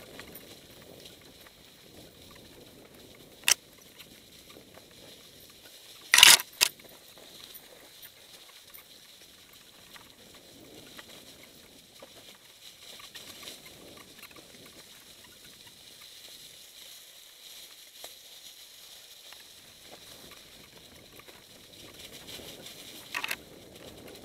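Mountain bike tyres rolling over a trail of dry fallen leaves, a steady crunching rustle. Sharp knocks come as the bike jolts over bumps: once about three and a half seconds in, a loud double knock about six seconds in, and another near the end.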